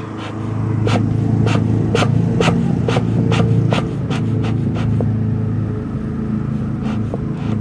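Bee smoker bellows pumped by hand, puffing and clicking about twice a second, slowing after about five seconds, to draw a light, cool smoke from the smouldering fuel. A steady low rumble runs underneath.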